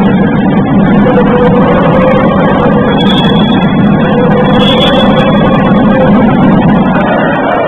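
Loud, steady crowd noise in an indoor sports hall: spectators cheering right after the final buzzer of a home basketball win.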